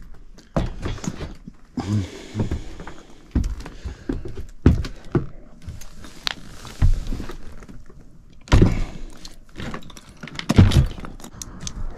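Irregular thumps, knocks and shuffling of someone moving across attic framing on hands and knees, bumping and handling the sheet-metal cabinet of an HVAC unit.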